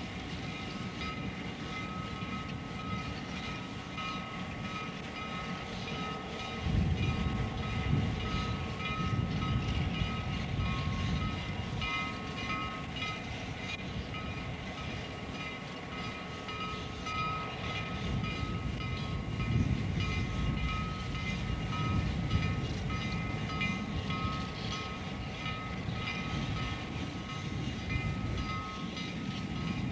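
A slow passenger train rolls past: coaches, then the unsteamed Canadian National 4-6-4 steam locomotive 5700 and its tender, being pushed by a diesel. The wheels rumble on the rails with a steady high squeal, and there are no exhaust beats. The rumble grows heavier about seven seconds in.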